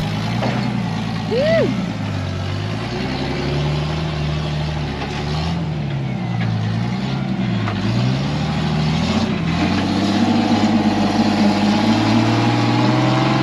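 Rock-crawling buggy's engine revving up and down as it climbs a steep rock crack. The pitch swings repeatedly, then holds higher and louder near the end.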